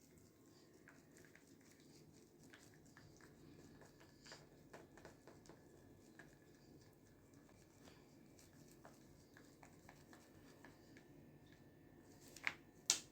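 Faint scattered light clicks and soft squishes as a shampoo-and-cornstarch slime mix is worked in a bowl, with two sharper clicks near the end.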